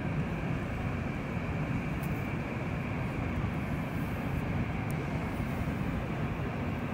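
Steady jet engine rumble of a twin-engine airliner taxiing.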